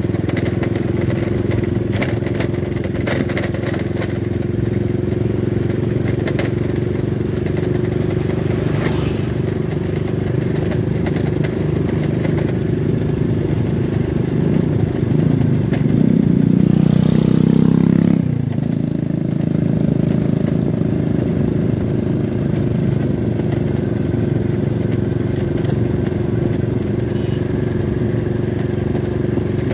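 Motorcycle engine running steadily while riding, heard from on the bike, with rushing wind and scattered clatter. Past the middle another motorcycle passes, growing louder and then dropping in pitch as it goes by.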